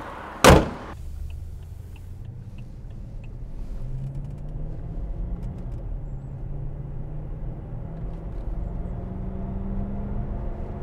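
A car hood slammed shut once, the loudest sound. Then, heard from inside the cabin, the Alpina B7's freshly rebuilt supercharged N62 V8 pulls away on a test drive, its note rising as the car accelerates.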